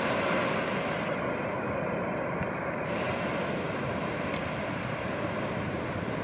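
Steady roar of heavy surf from a large hurricane swell, with wind on the microphone.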